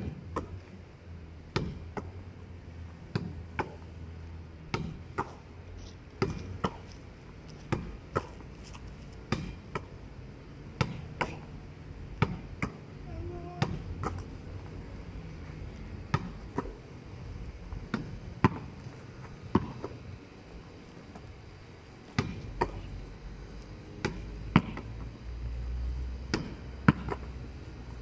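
A netball being thrown against a wall and caught over and over. It makes pairs of sharp slaps about every one and a half seconds: the ball hits the wall, then lands in the hands about half a second later.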